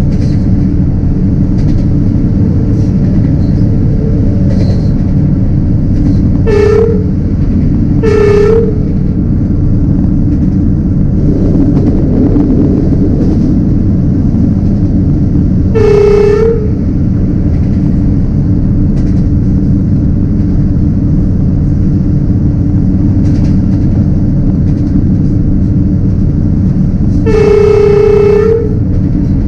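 Vietnamese diesel locomotive running along the line with a steady low rumble, heard from the cab. It sounds its horn four times: two short blasts a second and a half apart about six seconds in, another short blast a little past halfway, and a longer blast near the end.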